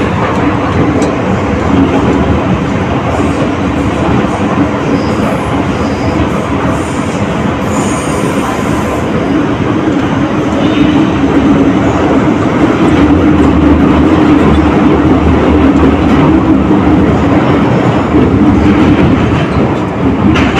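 MTR Kwun Tong line M-Train (Metro-Cammell electric multiple unit) running, heard from inside a crowded car: a loud, steady rumble of wheels on rail with a hum, which grows louder about halfway through.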